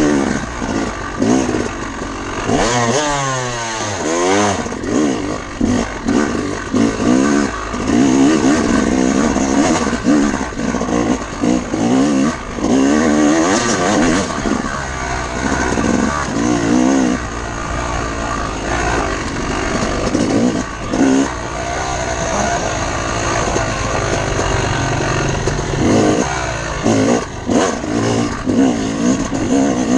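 Off-road motorcycle engine revving up and down through the gears as the bike is ridden, with quick rising and falling sweeps in pitch.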